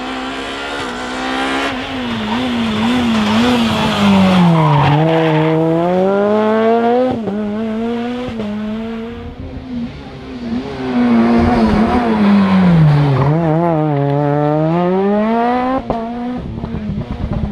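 Rally car engine revving hard, its pitch twice falling away and then climbing steeply again, with rapid shorter rises and dips between.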